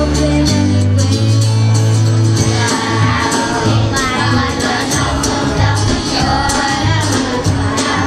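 Children's choir singing to a steady bass line with a light regular beat; the voices come in strongly about three seconds in.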